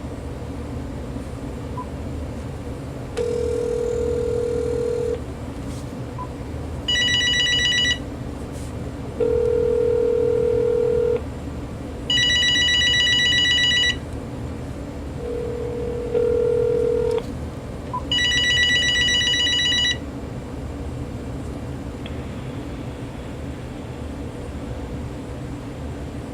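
Telephone ringback tone, a low steady beep two seconds long every six seconds, alternating with the cordless phone's electronic ringer trilling about a second and a half later. There are three rings of each, and then both stop about 20 seconds in.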